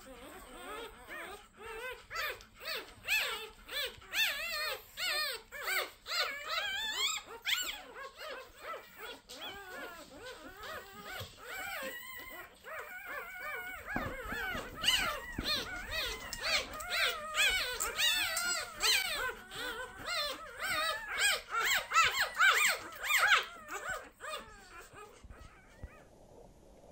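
Newborn Labrador puppies squeaking and whimpering, many short high cries in quick, overlapping succession that stop shortly before the end.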